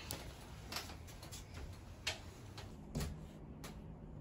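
A few sharp, irregular light taps or clicks, roughly a second apart, with a faint steady hum starting about three seconds in.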